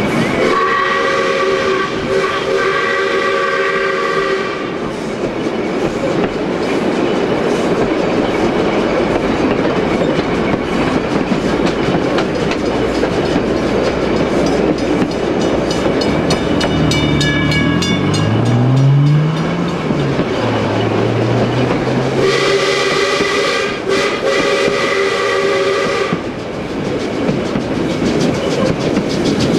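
South Australian Railways light pacific steam locomotive 621 hauling its train, with the wheels clattering over the rail joints. Its steam whistle sounds a held chord of several notes twice: for about four seconds at the start and again for about four seconds near the end. Level crossing bells ring fast near the middle.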